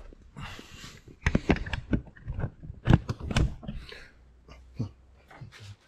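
Handling noises: a string of sharp clicks and knocks, loudest between about one and three and a half seconds in, with short bursts of rustling.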